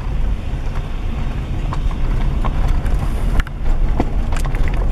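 Car driving slowly: low, steady engine and tyre rumble heard from inside the cabin, with a few sharp clicks about three and a half to four and a half seconds in.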